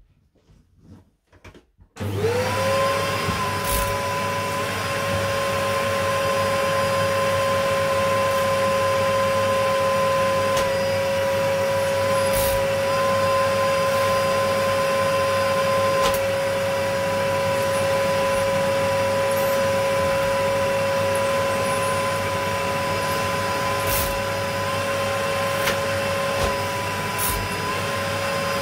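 Refurbished 1995 Dyson DC02 cylinder vacuum cleaner switched on about two seconds in, its motor spinning up within a fraction of a second to a steady high whine over a low hum, then running steadily as the floor tool is pushed over carpet, with a few light knocks from the tool.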